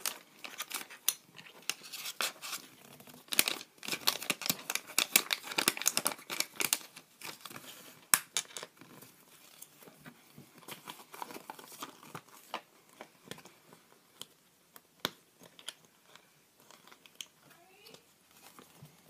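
Hands crinkling a plastic wrapper and clicking small plastic toy pieces against a table. The crackling is dense for about the first half, then thins to scattered separate clicks.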